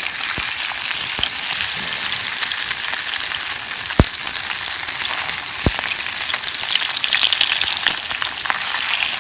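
Sardines sizzling in a pan over a campfire: a steady hiss with fine crackling, and two sharp clicks about four and five and a half seconds in.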